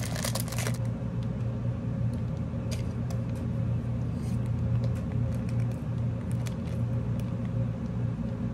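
A plastic snack wrapper tearing open in the first second, then a few faint crinkles, over a steady low hum.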